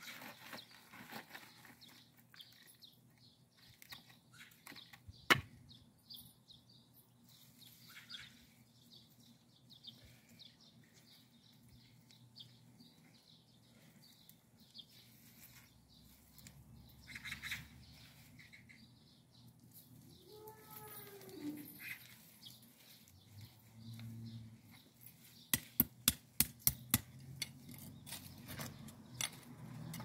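Scattered bird chirps over a quiet rural background. A cow lows once about two-thirds of the way in, a long call that rises and falls. A quick run of sharp clicks comes near the end.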